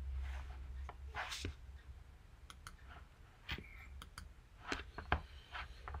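A few soft computer mouse clicks, scattered about a second apart, over a faint low hum.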